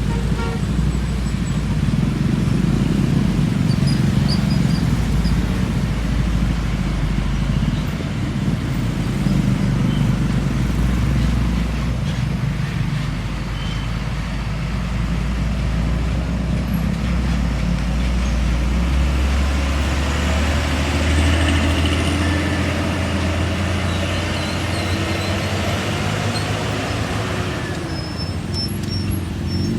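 Heavy diesel trucks running on the road amid traffic: a continuous low engine rumble with road noise, its pitch shifting upward about two-thirds of the way through.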